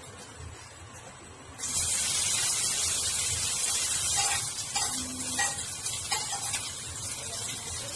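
Chopped vegetables dropped into hot oil in a kadai burst into a loud sizzle about two seconds in, and the frying hiss carries on steadily. A few light clinks of a steel spoon against the bowl come over it.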